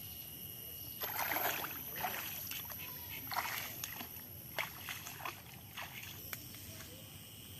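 Footsteps wading through shallow, muddy pond water and wet weeds: a few sloshing splashes, then a run of shorter, lighter splashes.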